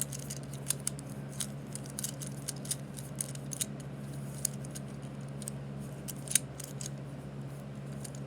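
Plastic fidget cube being clicked and fiddled with: many short, sharp clicks at an irregular pace, one louder click about six seconds in, over a steady low hum.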